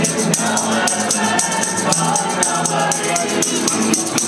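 Live jam with many voices singing together over the band, and a tambourine shaking out a steady beat.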